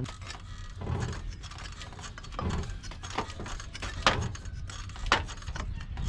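Metal tool clinks and clanks, about five separate sharp hits, as a socket wrench is fitted to a Mazda Miata's loose crank pulley bolt to tighten it.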